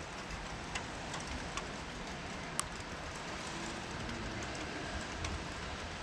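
Steady rain falling, with a few sharp drop ticks close by; the loudest tick comes a little before halfway.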